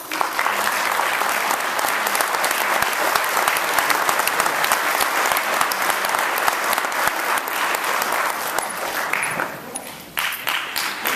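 Audience applauding: dense, steady hand clapping that dips briefly near the end and then picks up again.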